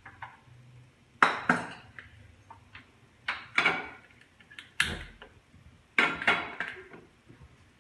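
A frying pan knocking and clattering on the gas stove as it is set down and shifted: about seven sharp knocks, mostly in pairs, each with a short ring.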